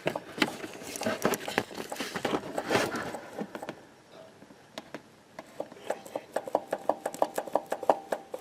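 Metal hand tools clinking and clattering against engine parts, then a fast, even run of clicks at about five a second.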